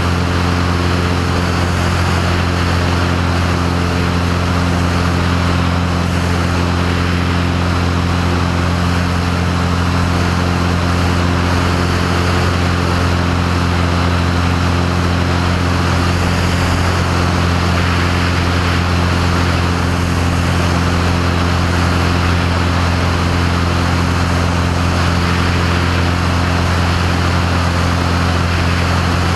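Single-engine propeller airplane in cruise flight: the piston engine and propeller drone steadily at a constant pitch under a continuous rush of wind noise.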